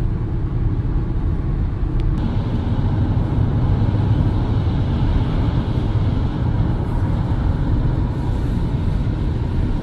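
Steady road noise inside a moving car at highway speed: a low rumble from the engine and the tyres on a wet, slushy road. There is one light click about two seconds in.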